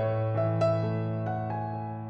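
Background music: a slow, gentle keyboard melody of single struck notes over a held bass note.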